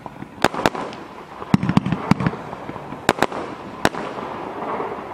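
Mars Pyrotechnics Star Chaser firework firing shot after shot: about eight sharp bangs at irregular spacing, with a steady hiss between them.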